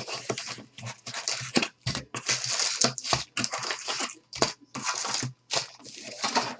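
A sealed trading-card box being torn open and its foil card packs handled: irregular bursts of tearing cardboard and crinkling foil wrappers, with short pauses between.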